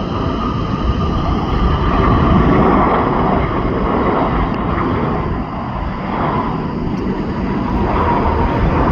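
Jet airliner engines: a loud, steady rush with thin whining tones above it, as an airliner passes close by.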